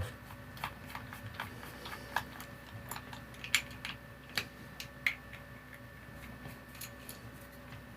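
Scattered light clicks and taps as the cover of a mains plug on a hair straightener's lead is unscrewed and taken off, with small plastic and metal handling sounds at an uneven pace.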